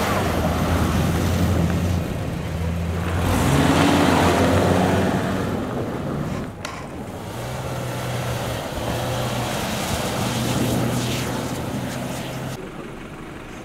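SUV engines driving on a packed-snow track, over the hiss of tyres and snow spray. A white Range Rover Evoque's engine pulls under acceleration, its pitch stepping up about three and a half seconds in and loudest around four seconds in. After a break near the middle, a white Subaru Outback's engine runs at a steadier pitch as it pulls away and fades near the end.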